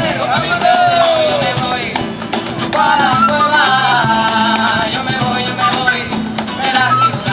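Live Latin-style band music with a steady percussion beat under gliding melody lines, between sung verses.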